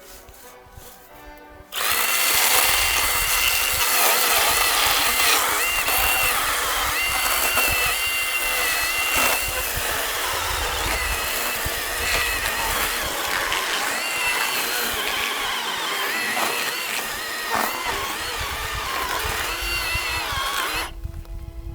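Milwaukee M18 FUEL 18V cordless handheld chainsaw running. It starts abruptly about two seconds in and stops near the end, and its high electric-motor whine steps up and down in pitch.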